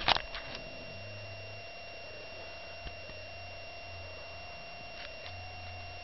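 Rustling and a couple of knocks from the camera being handled right at the start, then a steady faint hum with a thin constant whine.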